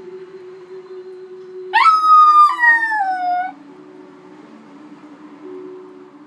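A small dog howls once, a drawn-out howl of about two seconds that holds a high pitch and then slides down at the end.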